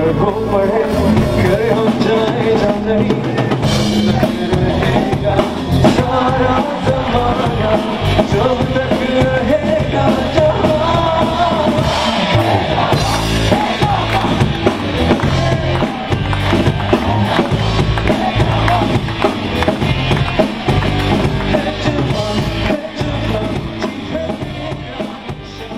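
Live rock band playing, with drum kit, electric guitar and acoustic guitar, and a man singing lead. The music fades out near the end.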